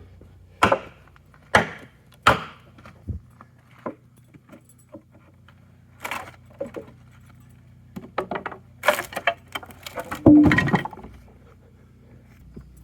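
Irregular sharp knocks and clatters of hard objects being handled: three single loud hits in the first few seconds, then a denser rattling clatter about nine to eleven seconds in, over a faint low hum.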